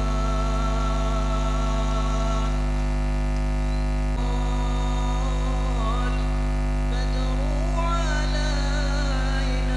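Slow, melismatic sholawat singing by male voices through a PA, with no drums, over a loud steady mains hum from the sound system.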